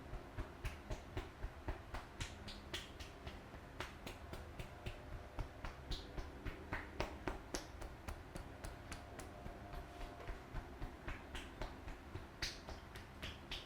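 Sharp slaps and claps of a barber's hands during a head and back massage, coming about three times a second in an uneven rhythm.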